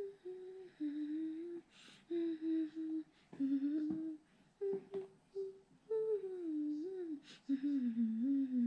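A girl humming a wordless tune with her mouth closed: a string of held and sliding notes with short breaks between phrases, with a few short clicks in the gaps.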